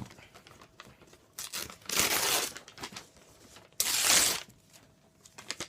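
A sheet of paper crinkling and rustling as it is handled, in two loud bursts about two and four seconds in, with small clicks and rustles between them.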